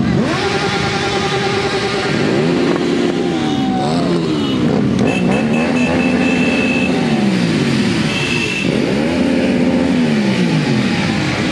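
Motorcycle engines running in a slow-moving group over a steady low rumble, revved up and down several times, each rev rising and falling in pitch.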